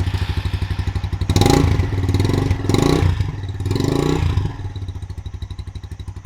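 Motorcycle engine running just after starting first press on a repaired starter motor, blipped louder three times in the first half, then settling to an even, pulsing idle.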